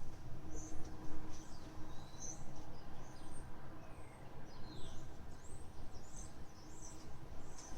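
Small birds chirping and calling, many short high notes and quick sweeps in pitch, over a steady low background rumble.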